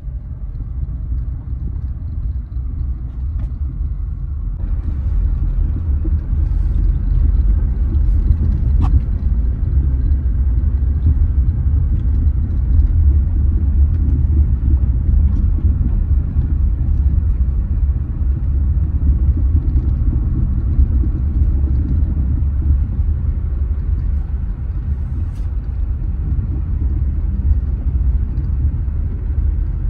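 Car being driven on the road: a steady low rumble of engine and road noise, which grows a little fuller and louder about four or five seconds in.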